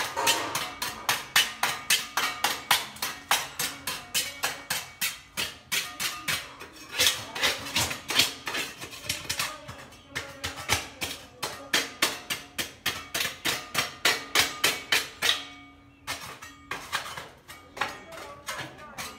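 Hand paint scraper scraping old paint off a steel window frame in quick, even strokes, about five a second, with a brief pause near the end.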